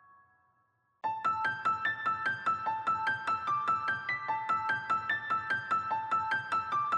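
Background music: a fading keyboard chord dies away, then about a second in a bright piano-like melody of quick, evenly spaced notes starts abruptly, about five a second.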